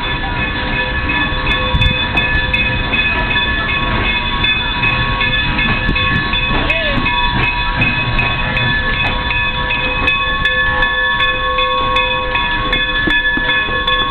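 A train rolling past close by with a steady rumble and a run of sharp clicks from its wheels over the rail joints. A set of high, steady ringing tones holds throughout.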